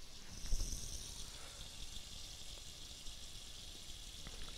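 Faint steady hiss of water running from a kitchen tap, filling a stockpot with cold water for beef stock, with a light bump about half a second in.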